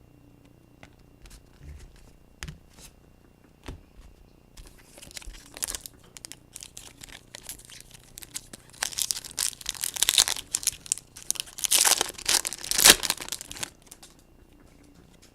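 Trading card packs being torn open by hand, the foil wrappers crinkling and ripping. A few light clicks and handling noises come first, then about ten seconds of dense tearing and crinkling that grows loudest near the end before it stops.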